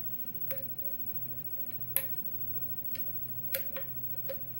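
Lock pick working the pin stack of a Schlage-keyway pin tumbler lock during single-pin picking: a handful of small, sharp clicks at irregular spacing, the loudest about two seconds in, over a steady low hum.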